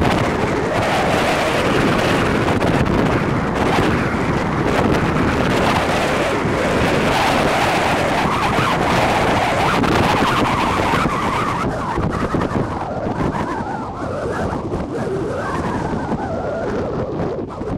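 Wind buffeting the microphone: a loud, steady rushing noise that eases slightly in the second half.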